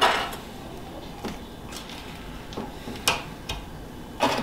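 Steel fender and its mounting bolts clicking and knocking as the fender is hung by hand: about five separate short clicks and clinks, some ringing briefly.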